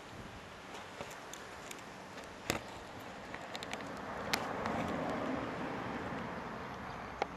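Outdoor background noise with a passing vehicle swelling and fading in the middle, and a few sharp clicks.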